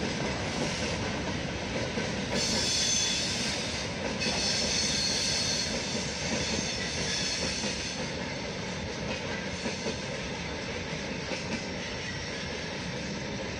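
Container freight train wagons rolling along the rails in a steady rumble, with a high screech of wheels on the rails from about two to seven seconds in. It grows a little quieter near the end as the last wagons move away.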